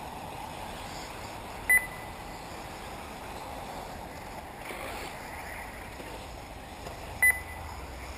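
Two short electronic beeps, about five and a half seconds apart, over a steady outdoor hiss.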